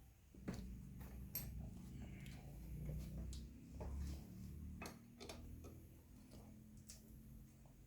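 Faint, irregular light clicks and taps of small metal parts being handled during motorcycle engine reassembly, over a low background rumble.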